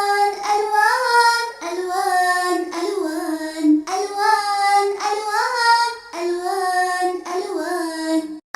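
A child's voice singing a sing-song melody of short phrases, each about a second long, with pitch glides between notes; a brief pause comes about six seconds in.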